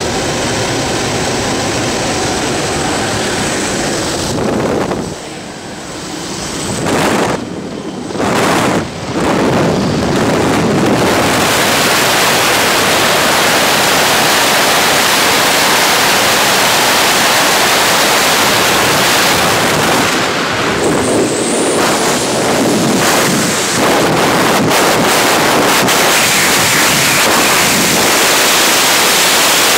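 Loud, steady rush of wind buffeting a skydiving camera's microphone: slipstream and aircraft noise at the jump plane's open door, then freefall wind after exit.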